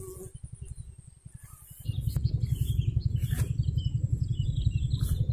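Outdoor ambience: a low, rapid, even throbbing that gets louder about two seconds in, with birds chirping over it.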